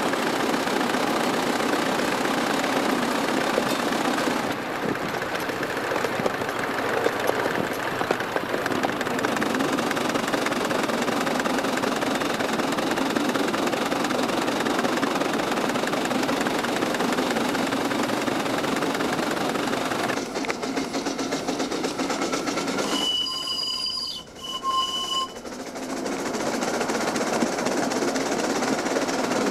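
A coal-fired 7¼-inch gauge Wren live-steam locomotive running along the track, heard from the footplate: a steady running noise of the engine and its wheels on the rails. About three-quarters of the way through, the noise briefly drops away and a short high tone sounds twice.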